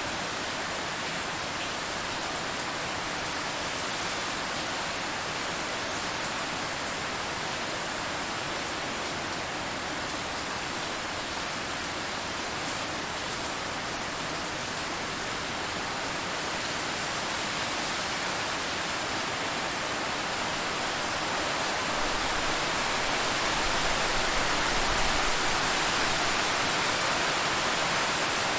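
Steady rain heard from inside a car, a dense even hiss that grows a little louder after about twenty seconds, with a low rumble joining it.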